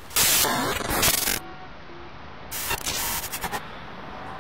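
Bursts of TV-style static hiss as a glitch effect, cutting in for about a second, dropping away, then returning briefly with crackles about two and a half seconds in.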